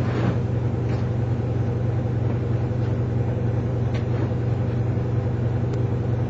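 A steady low background hum at an even level, with a few faint taps.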